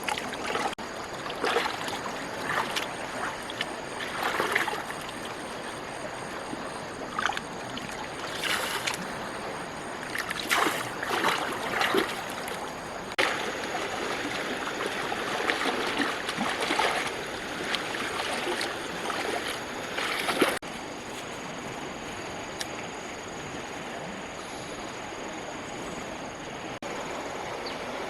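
Water splashing and sloshing in irregular surges. About two-thirds of the way in it cuts off suddenly to a quieter steady background. A steady high insect drone runs beneath.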